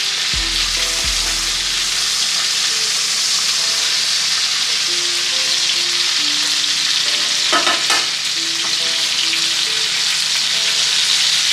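Snakehead fish fillets sizzling in hot oil in a skillet, a steady hiss. A metal spatula scrapes and taps against the pan as the pieces are turned, most clearly about eight seconds in.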